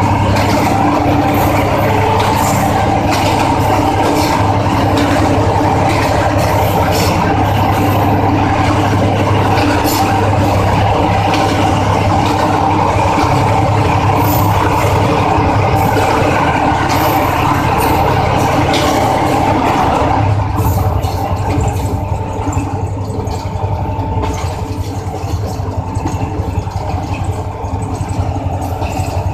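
Diesel-electric locomotive running, heard from inside its cab: a steady low engine hum under the rumble and clatter of the wheels on the rails, with scattered sharp clicks. It is loud and echoing while the train is in the tunnel, then eases and sounds less harsh after it comes out into the open about 20 seconds in.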